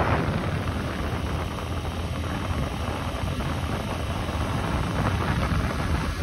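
Steady road and wind noise from a moving vehicle: a low rumble under an even hiss.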